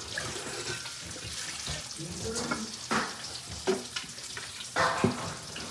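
Bacon frying in a skillet on the stove, a steady sizzle, with a couple of light knocks and faint voices over it.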